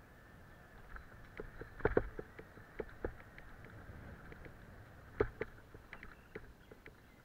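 Mountain bike rattling and clunking over bumps and roots on a dirt woodland trail, with a low rumble of tyres and wind. Two heavy jolts stand out, about two seconds in and again about five seconds in.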